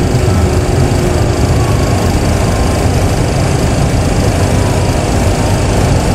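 Cockpit sound of a Boeing 737 Classic full flight simulator while taxiing: a steady low rumble from the simulated engines at idle. A faint thin whine sinks slowly in pitch.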